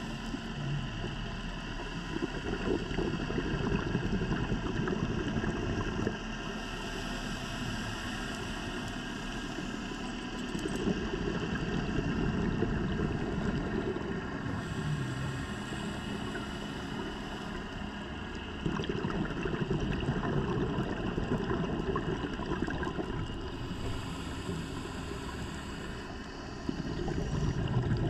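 Diver breathing through a scuba regulator underwater: a hissing inhale through the regulator alternates with a louder, bubbling exhale, about three breaths at roughly eight-second intervals.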